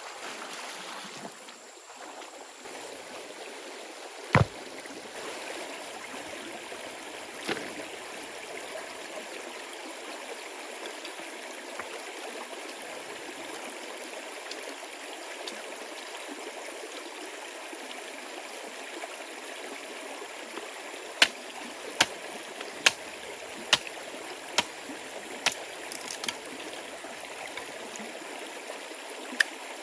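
Steady rushing of a flowing stream. One sharp knock comes about four seconds in, and a run of about seven sharp knocks, roughly one a second, comes past the middle.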